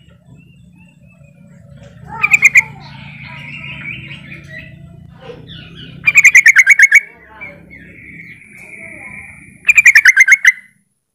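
Yellow-vented bulbul calling: three loud, rapid chattering bursts of about eight notes each, roughly four seconds apart, with softer twittering between them. This is the call that bird keepers play as a lure to set other yellow-vented bulbuls calling.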